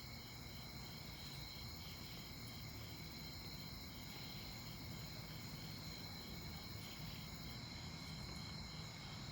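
Night insects, crickets chirping in chorus: steady high trills with a pulsing chirp repeating over them.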